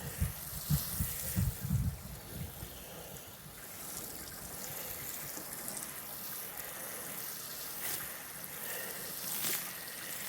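Water poured from a jug trickling steadily onto a garden bed, with a few soft knocks in the first two seconds.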